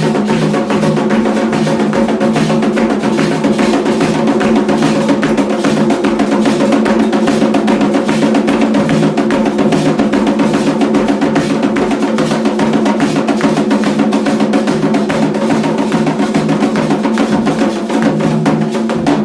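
Ceremonial Candomblé drumming on atabaque hand drums: fast, dense, continuous beating.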